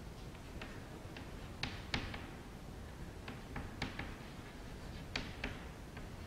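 Chalk on a chalkboard as letters are written: a string of sharp, irregularly spaced taps where the chalk strikes the board.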